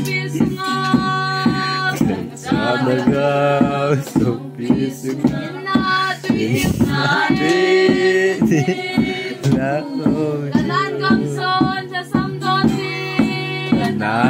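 A group of men's and women's voices singing a song together to a strummed acoustic guitar, with hands clapping a steady beat.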